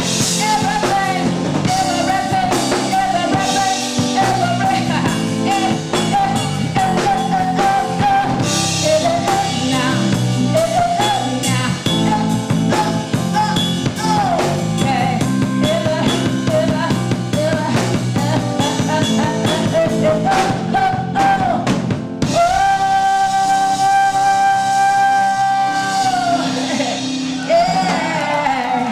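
A woman sings live with a band of drum kit, guitar and keyboards. Near the end she holds one long note for about four seconds while the band plays more quietly beneath her.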